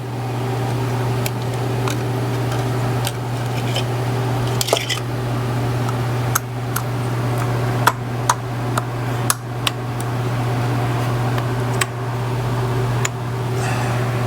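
Metal hand tools and parts clinking and clicking now and then over a steady low hum.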